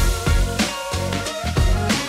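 Background music with a steady drum beat, about two beats a second, under held chords.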